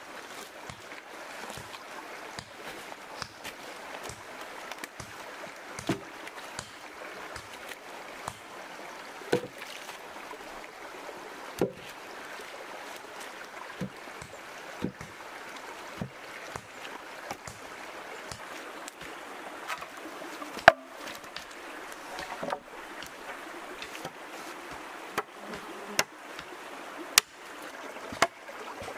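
A shallow stream running steadily, with about ten scattered sharp knocks and splashes as logs and stones are handled in the water. The loudest knock comes about two-thirds of the way through, and several more cluster near the end.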